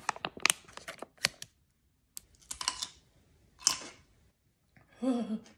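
Crinkling and quick clicks of a foil-lined plastic pickle pouch being opened and handled as a pickle is fished out with a fork. Then a pause, followed by two short crunches of a dill pickle being bitten and chewed.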